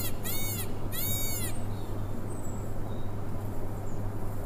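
Male Indian peafowl calling: two short, loud, high-pitched cries in quick succession in the first second and a half, each rising and then falling in pitch, over a steady low hum.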